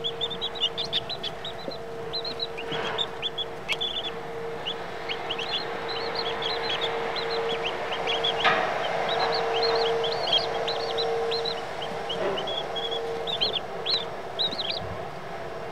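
Baby chicks peeping: many short, high peeps, coming in busy clusters and now and then pausing, over a steady low hum.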